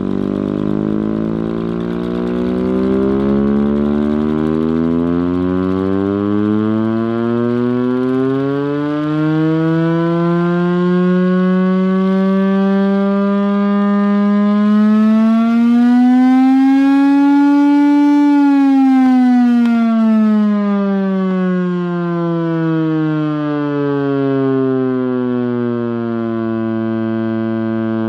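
Chrysler-Bell Victory air raid siren, driven by its Chrysler Hemi V8 engine, sounding one long, loud wail: the pitch climbs, levels off briefly, peaks about two-thirds of the way through, then winds slowly down.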